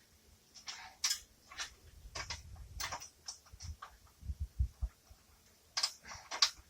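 Irregular metal clicks and clinks of bolts, nuts and hand tools being worked against a steel winch cradle in a cramped space, with a few short low knocks about four to five seconds in.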